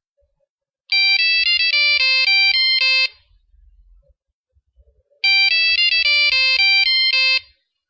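Satellite phone ringtone: a fast melody of electronic beeps, about a dozen quick notes, rung twice with a pause of about two seconds between.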